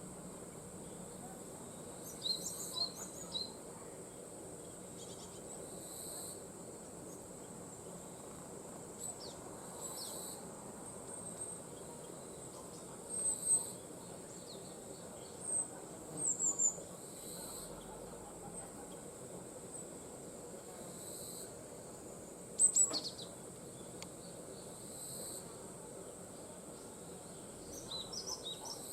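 Forest insects keep up a steady high-pitched drone with pulsing trills. Short bird calls come through several times, the loudest about three-quarters of the way in.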